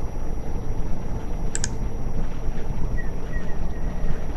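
A single computer mouse click, a quick pair of ticks, about a second and a half in, over a steady low background rumble.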